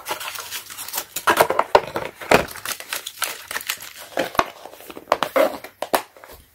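Handling noise of a torque wrench being laid into its moulded plastic case and the case being shut: a run of knocks and clicks of metal and plastic, with paper and plastic rustling between them.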